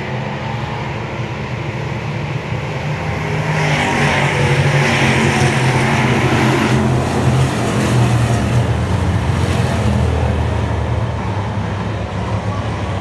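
Race car engine running at speed, getting louder from about four seconds in and easing off after about ten seconds, with a rushing noise over the engine between about four and seven seconds.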